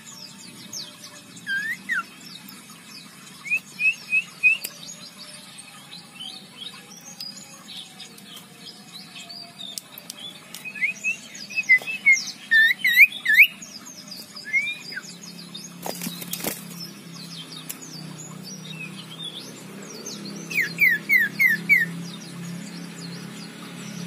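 Male common iora giving its harsh 'ngekrek' calls: bursts of quick, sharp notes, four to six in a row, with pauses of several seconds between bursts. A short knock sounds about two-thirds of the way through.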